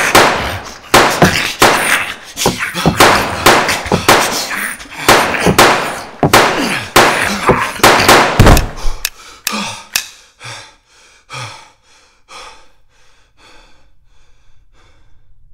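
A rapid barrage of heavy thuds, knocks and crashes, packed tightly for about nine seconds, then thinning to separate, fainter blows that die away near the end.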